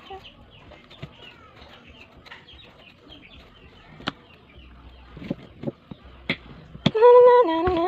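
Scattered knife clicks and soft scrapes as a green gourd is peeled and sliced by hand, with faint bird chirps. About seven seconds in, a rooster crows loudly, a long call that steps down in pitch.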